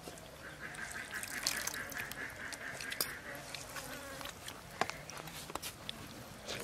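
Fingers mixing rice and curry on a steel plate, with scattered light clicks, while an animal call sounds in the background from about half a second in to about three and a half seconds.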